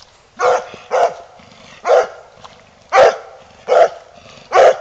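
A coonhound barking at a gate: six loud, short barks, roughly one a second.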